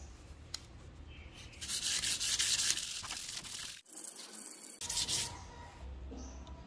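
PVC sheet rubbed by hand with a small blue pad: dry, scratchy scrubbing strokes, strongest for about a second and a half from about a second and a half in, with a shorter burst about five seconds in.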